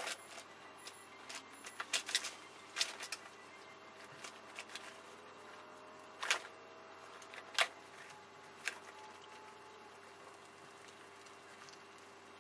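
Guinea pigs scurrying and rummaging in wood shavings and hay, played at four times speed: a scattering of sharp rustling clicks and scrapes, the loudest right at the start and a cluster around two seconds in and again between six and nine seconds in, over a faint steady hum.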